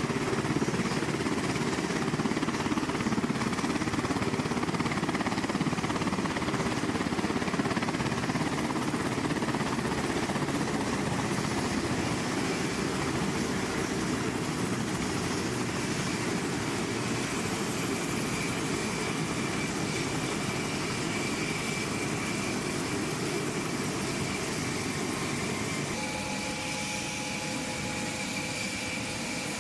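HH-60W Jolly Green II helicopter running on the ground with its main rotor turning: a steady rumble from the rotor and twin turboshaft engines. A steady high whine joins about halfway through.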